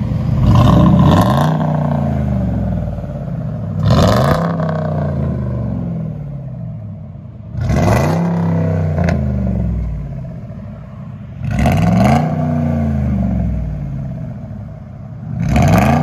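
2007 Ford F-150 Lariat's naturally aspirated 5.4-litre Triton V8 through a true dual exhaust with high-flow cats, revved five times about every four seconds: each blip rises sharply and falls back to idle.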